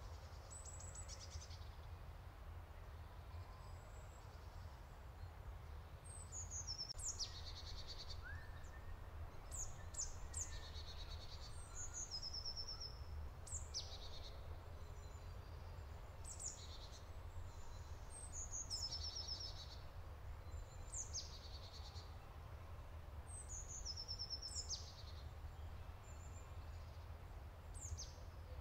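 Small songbirds singing in woodland: short high phrases of trills and falling notes, repeated every couple of seconds, over a steady low rumble.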